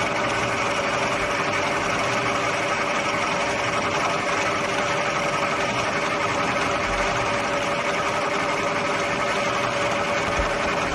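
Milling machine spindle running steadily at speed with an edge finder in it, ready to touch off on the vise jaw. A steady motor hum with a constant whine over it, which cuts off at the very end.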